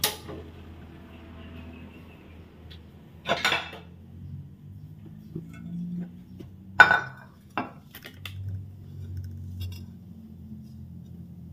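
Clear glass baking dish handled and set down on a stone countertop: a few separate clinks and knocks, the loudest about seven seconds in.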